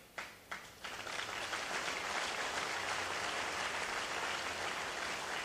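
Audience applauding: a few scattered claps at first, swelling after about a second into steady applause.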